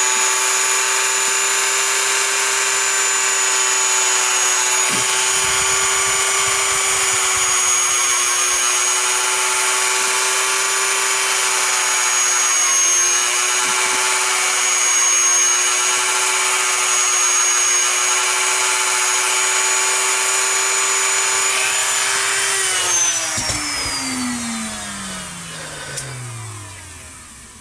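Handheld rotary tool running at a steady high speed with a conical sanding bit on a foam blade, making a steady whine. About 23 seconds in it is switched off and spins down, its pitch falling smoothly as it slows.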